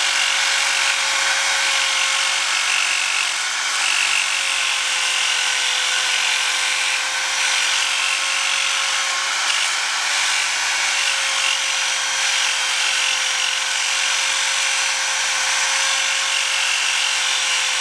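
A handheld rotary tool fitted with a small sanding disc runs continuously as it grinds casting marks off a cast alloy motorcycle wheel spoke. There is a steady high motor whine over the hiss of the disc on the metal.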